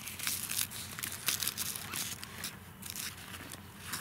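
Nylon tent fabric rustling and crinkling in a rapid run of crackly scratches as the tent's ventilation is opened.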